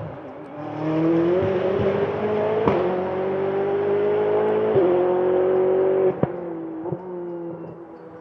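Ferrari 488 GT Modificata's twin-turbo V8 accelerating hard and rising in pitch, then upshifting four times. Each shift brings a sharp crack and a small drop in pitch, and the sound fades near the end.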